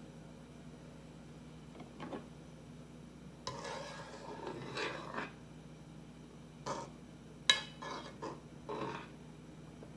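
A kitchen utensil scraping and tapping against a pot on a lit portable gas stove, in several short bouts, with one sharp click about halfway through. A faint steady hum runs underneath.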